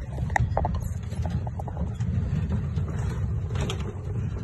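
Wind buffeting the phone's microphone: a loud, uneven low rumble with a few faint clicks and knocks.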